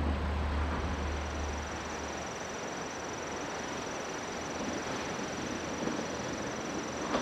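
Steady outdoor noise of surf and wind on a rocky shore, with a thin, steady high-pitched whine over it. The low rumble of a diesel train fades out about two seconds in.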